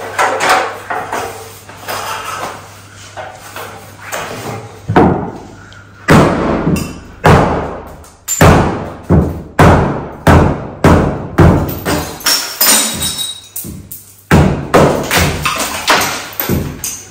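Hammer blows on the top of a reinforced-concrete kitchen hood, knocking a hole through it; from about six seconds in they come hard and fairly regular, roughly two a second. Background music plays under the blows.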